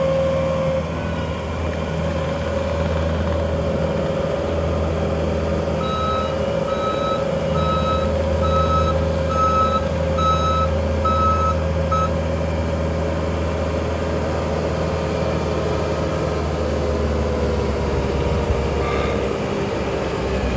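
Bobcat T740 tracked skid steer's turbocharged four-cylinder diesel (Bobcat D34) running steadily with a whine that sags slightly near the end. Partway through, its reversing alarm beeps about every three-quarters of a second for some six seconds, the sign that the machine is backing up.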